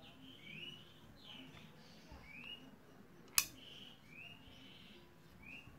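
Small birds chirping in the background, a series of short rising chirps. About halfway through there is one sharp click, the loudest sound, from the wooden slingshot being handled.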